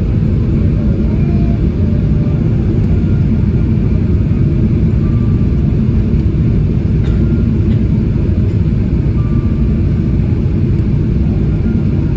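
Steady low rumble of a Boeing 777-300ER heard from inside the passenger cabin, holding an even level throughout.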